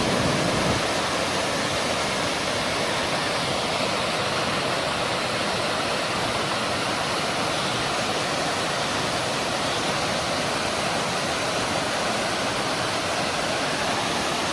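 Steady, even rush of fast-flowing water from a waterfall and its stream, running high with rain from upstream.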